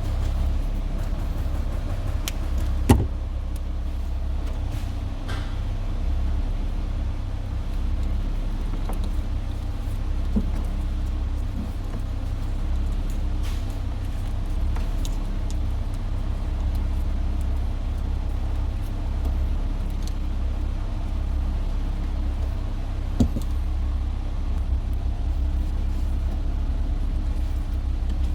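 2007 Dodge Charger idling steadily, a low rumble, with a few light clicks and knocks from handling parts, the sharpest about three seconds in and another near twenty-three seconds.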